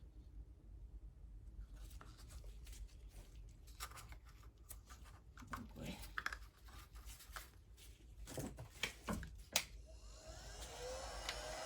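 Faint scattered clicks and taps of small items being handled on a work surface, then about ten seconds in a small electric blower starts up with a rising whine and a steady rush of air.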